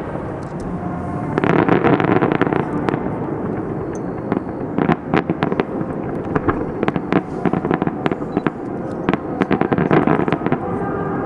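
Fireworks display: a rapid, continuous string of bangs and crackling bursts, densest about a second and a half in and again near the end.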